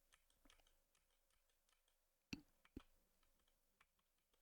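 Near silence with faint scattered clicking; two clicks stand out a little about two and a half seconds in.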